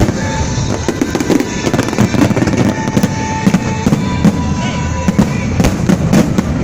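Fireworks bursting in quick succession, a dense series of sharp bangs, with music playing underneath.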